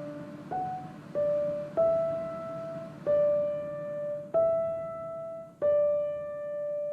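Background music: a slow piano melody of single notes, one struck about every second or so, each ringing and fading before the next.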